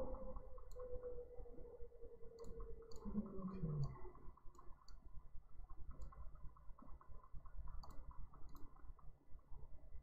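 Computer mouse clicking irregularly, faint, over a low steady background hum.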